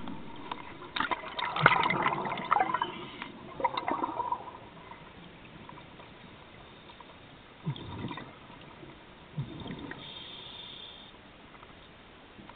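Scuba regulator exhaust bubbles heard underwater: a crackling, bubbling burst lasting about three seconds, starting about a second in, then two short, low gurgles later on.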